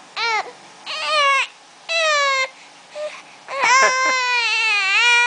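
Baby crying: three short wails about a second apart, then one long unbroken wail from about three and a half seconds in.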